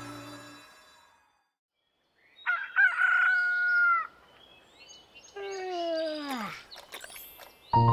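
A rooster crowing twice: the first crow holds its pitch and drops at the end, the second slides steadily downward. Music fades out at the start and comes back in near the end.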